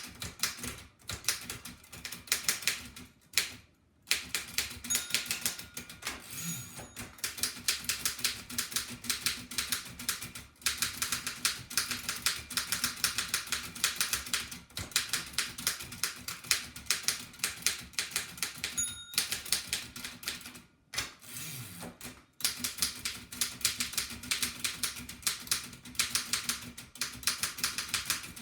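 A restored 1894 Densmore No. 1 typewriter being typed on fast: a rapid, dense run of key and typebar strikes, broken by a few short pauses.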